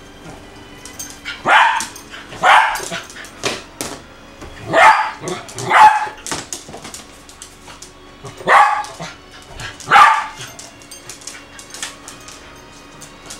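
Eskimo husky–poodle mix dog barking in play, six loud barks coming in three pairs a few seconds apart.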